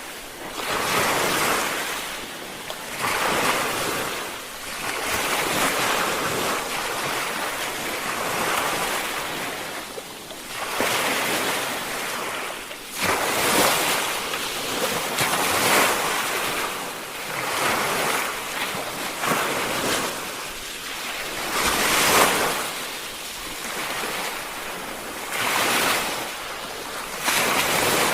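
Ocean waves breaking and washing ashore, the surf swelling and fading every two to three seconds, with some wind on the microphone.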